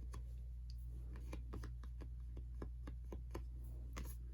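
Photocards and album pieces being handled and set down: light, irregular ticks and taps, over a steady low hum.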